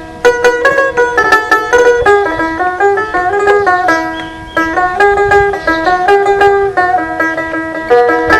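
Dotara, a Bengali plucked folk lute, playing a fast melody of quickly picked notes, with a short dip about four seconds in before the run picks up again.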